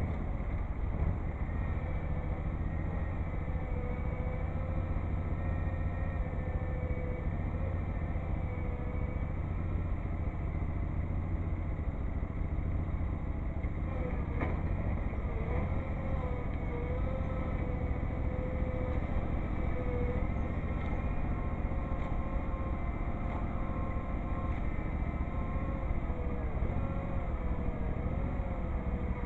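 Tractor engine idling steadily, its pitch wavering slightly now and then.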